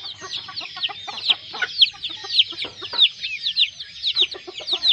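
A group of young jungle-fowl × village-chicken cross chicks peeping without pause: many short, high, falling peeps overlapping, several a second.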